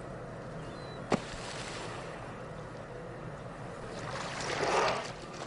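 Killer whales at the water's surface: steady lapping water, with a rushing exhalation from a surfacing whale's blow swelling about four seconds in. A single sharp click about a second in.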